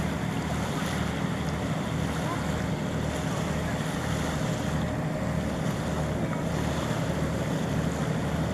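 Steady wind noise on the microphone over open water, with the faint, distant drone of a Meteor hydrofoil's twin diesel engines as it runs on its foils.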